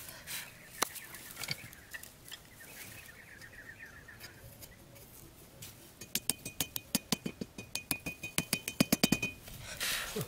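Quick run of light taps from the back of a hatchet head driving a small wooden peg into sandy ground, about six blows a second for three to four seconds, with a faint high ring under the taps. The blows start about six seconds in, after a stretch of faint handling ticks.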